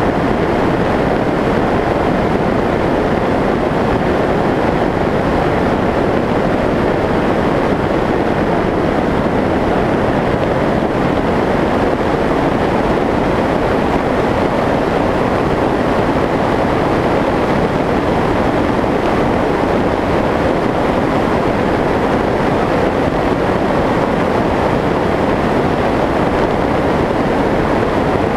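Steady rushing wind noise from air streaming past the onboard camera of a Skyshadow S800 FPV flying wing in flight, loud and even with no changes.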